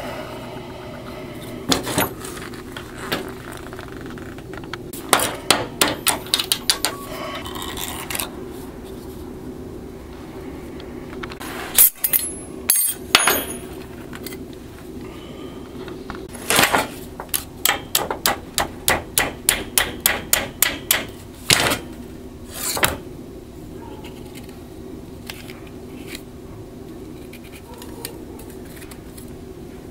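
Hammer blows on metal in several runs of sharp strikes, the longest about fifteen quick blows at roughly three a second in the second half, over a steady low hum.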